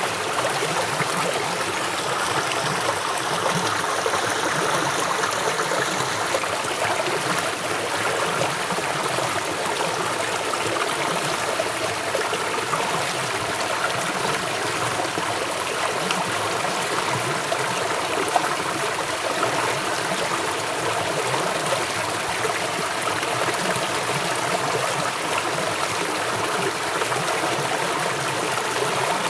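River water flowing swiftly: a steady, unbroken rushing of a fast stream.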